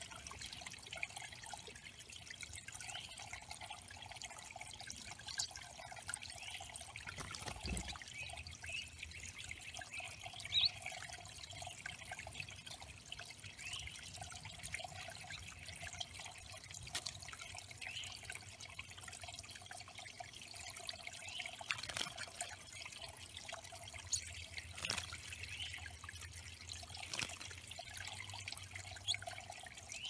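Small stone waterfall of a bird pond trickling steadily over stacked flat rocks into a shallow pebble pool, with a few sharper drips and splashes now and then.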